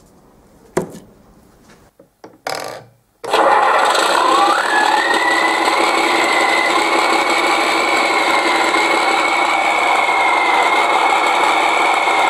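Benedini TBS Mini RC sound module playing a diesel truck engine sound through a small speaker. After a few short bursts, the engine sound starts abruptly about three seconds in and runs steadily. A high turbo-style whine rises over a couple of seconds and then holds steady.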